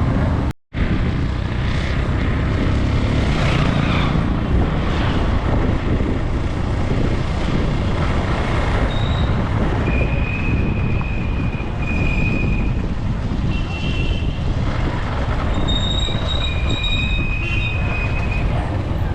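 Steady street traffic running with a low rumble, cut off briefly just under a second in. From about halfway through, several short high-pitched beeps sound over it, like vehicle horns.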